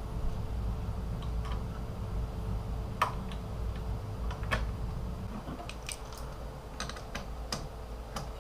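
Scattered small clicks and taps of computer parts being handled during a PC build, heard over a steady low hum.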